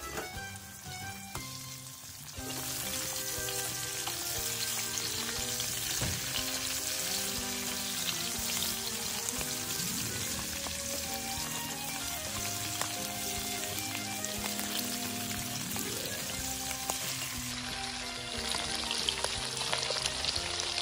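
Sturgeon pieces sizzling as they fry in oil in a metal cauldron, the sizzle growing louder about two and a half seconds in, over soft background music.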